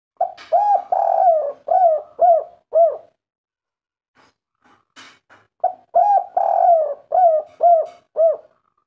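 Spotted dove cooing: two song phrases, each a run of about six hooting coos with one longer, drawn-out coo near the start and three quick coos at the end, the 'kuk 3' song type. A faint click comes between the phrases.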